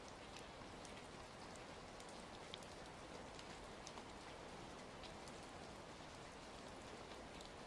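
Faint, steady rain hiss with scattered sharp crackles of a wood fire mixed in.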